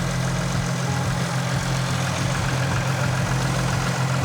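Sprinter camper van's engine idling steadily.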